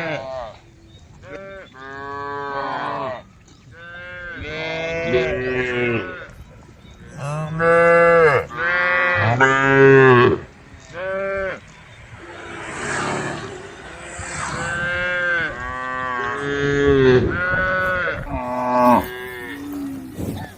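Several cows mooing one after another, long pitched calls of one to three seconds each, some overlapping: cows calling to the herd.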